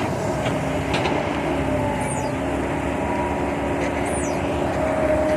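Kobelco SK120-5 hydraulic excavator running under load while digging, a steady diesel drone with a held hydraulic whine and a few knocks. Two brief high squeaks that fall in pitch, about two seconds apart.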